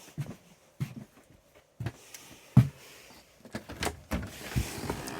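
Irregular knocks and thumps, like footsteps and a door being handled, with a steady hiss starting near the end.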